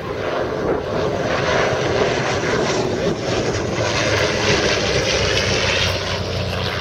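De Havilland DH89 Dragon Rapide flying past, its two six-cylinder inverted inline Gipsy engines and propellers running steadily. The sound grows louder about a second in and eases slightly near the end.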